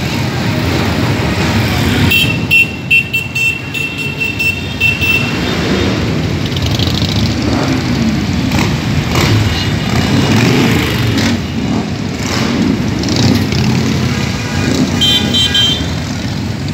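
A line of cruiser motorcycles riding slowly past one after another, their engines swelling and fading as each goes by. Horns toot in quick repeated beeps about two seconds in and again near the end.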